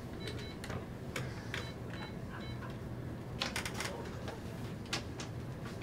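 Clicks and taps at a bank teller's station while a withdrawal is processed, with a few short high electronic beeps in the first couple of seconds and a quick flurry of clicks a little past halfway.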